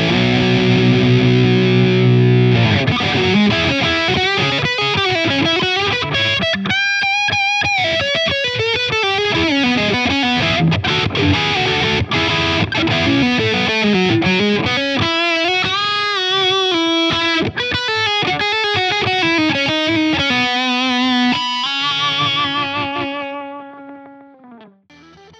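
Donner Hush-X headless electric guitar with its humbucker in active mode, played through a distorted drive tone: held chords for the first couple of seconds, then a single-note lead line with string bends and vibrato. It ends on held notes that fade out near the end.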